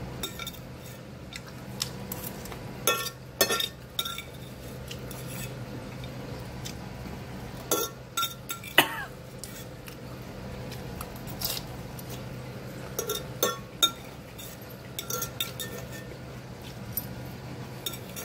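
Metal fork clinking and scraping against a ceramic dish while picking up salad, in irregular sharp clicks, a few louder ones, over a steady low hum.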